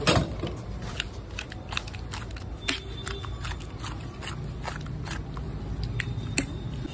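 Metal spoon clinking, tapping and scraping against steel serving pots and a steel plate as chole is dished out, in irregular clicks with a louder knock just after the start and another near the end, over a low steady street hum.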